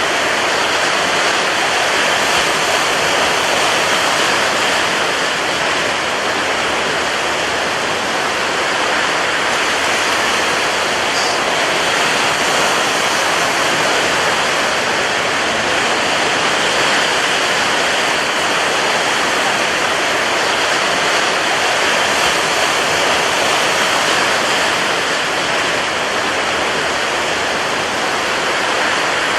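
Rough sea surf with strong wind: a dense, steady rush of noise with no distinct wave breaks.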